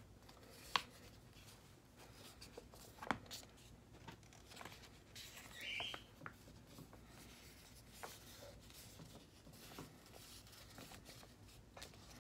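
Quiet room with a few faint, sharp taps and clicks, the loudest two under a second in and about three seconds in, and one short high squeak about six seconds in.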